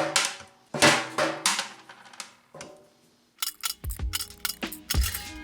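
Bolt cutters snapping through a coil of 14-gauge steel wire to cut off chainmail rings: a few sharp metallic snaps in the first two seconds. Then, about three and a half seconds in, a music track with a deep kick-drum beat starts.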